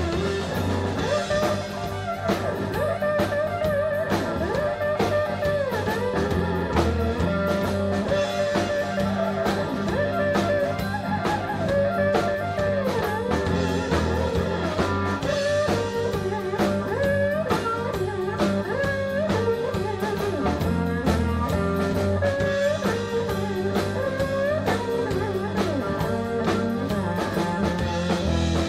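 Live blues band playing an instrumental passage: an electric guitar leads with bent, sliding notes over drum kit, bass guitar and keyboard.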